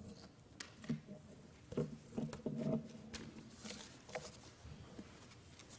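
Faint rustling of paper sheets and soft knocks as sermon pages are gathered up at a pulpit, a string of short irregular handling noises.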